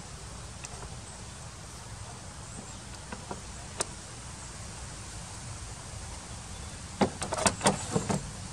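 A clear Perspex sheet knocking and clattering against the wooden box of a Skinner moth trap as it is fitted into place: a quick run of sharp knocks about seven seconds in, after a few single clicks earlier on. A steady low rumble runs underneath.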